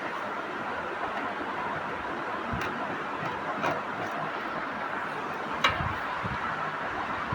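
Steady mechanical noise with a few sharp knocks, the loudest one past the middle.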